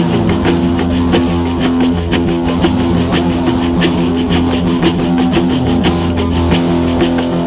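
Live sound-healing music: a held low drone with plucked strings over a quick, steady run of percussive strikes, several a second.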